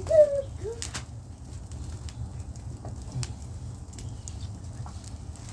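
Wood fire crackling in a brick fire pit under a frying pan: scattered sharp pops over a steady low rumble. Right at the start comes a short, low cooing call that falls and rises.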